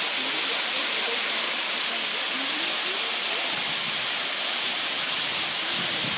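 Kaaterskill Falls, a two-tier waterfall, pouring into its plunge pool: a steady, even rush of water noise.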